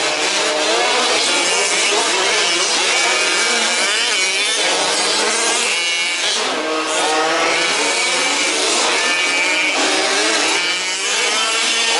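Several 1/5-scale petrol RC off-road cars' small two-stroke engines revving together, their overlapping pitches rising and falling constantly as the cars accelerate and back off around the track.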